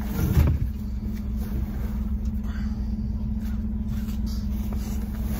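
An engine idling steadily with a low, even hum, with a brief thud just at the start.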